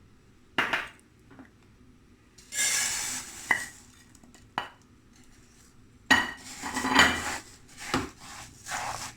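Cookware and a utensil knocking and clattering against a frying pan as oil and rice go in to be toasted, with a brief hiss about two and a half seconds in and steadier scraping and clatter in the last few seconds.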